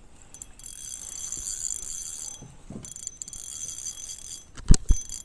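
Fishing reel being cranked in two spells of about two seconds each while a bass is played on the line, the reel's gears turning with a high whir that starts and stops abruptly. Near the end come two heavy knocks a fraction of a second apart, the loudest sounds here.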